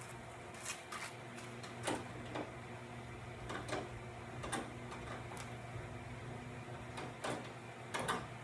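Scattered clicks and knocks, about a dozen, from hand work fitting a front splitter onto its quick-release mounts under a car, over a steady low hum.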